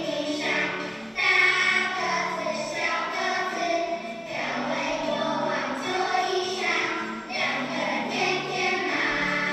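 A class of young children singing a song together.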